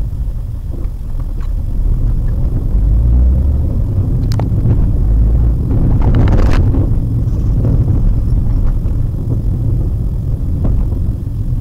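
Steady low road and engine rumble inside a Maruti Suzuki WagonR's cabin as it drives over a broken, patchy road, with scattered knocks and rattles from the bumps and a louder rustling jolt about six seconds in.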